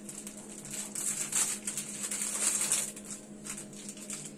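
Rustling and light clicks of gloved hands handling medical supplies on a cart, loudest between about one and three seconds in, over a steady low electrical hum from the equipment.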